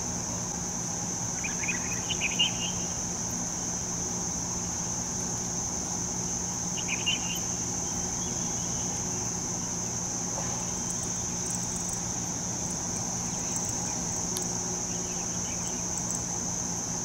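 Insects trilling steadily in one high, unbroken note over a low steady hum, with a few brief faint chirps near the start and again about seven seconds in.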